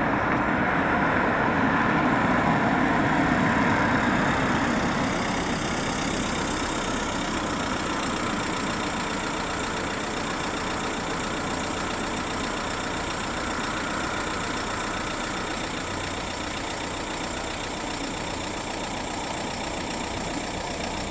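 Road traffic with engines and tyres running, louder over the first few seconds, then settling to a steady hum.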